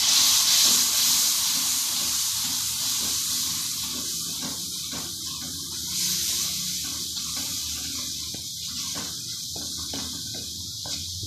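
Onion-tomato masala sizzling and hissing in hot oil in a steel pan, a little water just added, loudest at the start, fading, and swelling again about six seconds in. A wooden spatula stirs through it.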